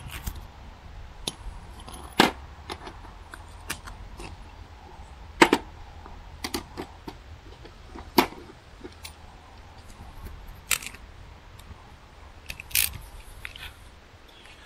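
Steel sockets, an extension bar and a wrench clinking and clacking against each other and the metal socket-set case as tools are picked out and fitted together. The metal-on-metal clacks are sharp and irregular, with about five louder ones, over a low steady rumble.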